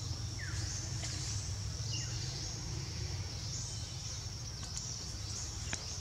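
Forest ambience: a steady high insect buzz with a low rumble underneath, broken by a couple of short bird chirps and a few faint clicks.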